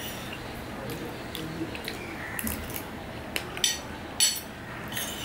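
A metal spoon clinking and scraping on a ceramic plate a few times, the sharpest clinks a little past halfway, with soft wet chewing of cooked vegetables in between.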